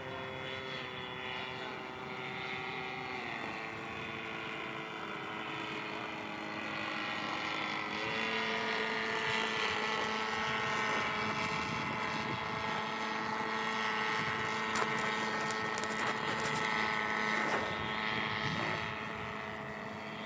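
Radio-controlled model airplane's motor and propeller whining steadily in flight, its pitch stepping down a few seconds in, then rising and growing louder as the throttle or distance changes.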